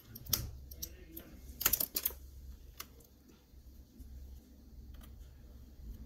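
Small, scattered clicks and taps of a metal pry tool and a soldering-iron tip against a laptop's plastic palmrest, with a quick cluster of clicks about a second and a half in, as the plastic rivets holding the keyboard are melted and pried free. A steady low hum lies underneath.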